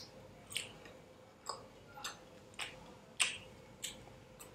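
Close-up chewing of a crisp fried momo: about eight short, sharp crunches at a steady pace of roughly one every half second or so.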